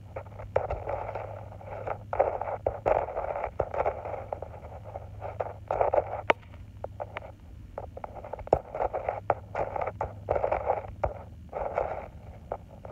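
Gritty scraping and rustling on dry dirt with scattered sharp clicks, in irregular bursts, as a cat paws at and chews a charger cable.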